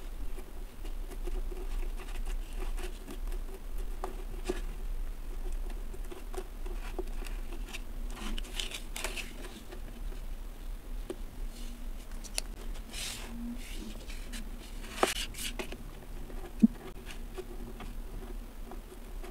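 Kinetic sand crumbling and being scraped from plastic moulds with a small plastic tool: soft crumbly rustles and scratchy scrapes, with one sharp plastic tap about three-quarters of the way through. A faint low hum runs underneath.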